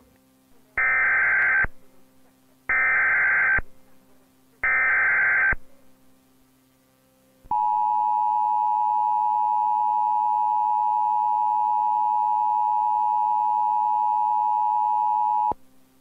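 Emergency Alert System test tones: three one-second bursts of the digital SAME header, then the two-tone attention signal held steady for about eight seconds and cut off sharply.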